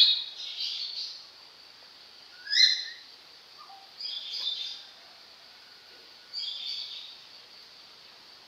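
Small songbird chirping: short, high, sharp notes in five quick bursts. The loudest come at the very start and about two and a half seconds in.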